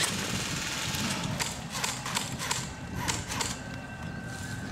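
Airsoft rifles firing: a string of sharp, irregular shot cracks, about eight of them, from about a second and a half in to about three and a half seconds in.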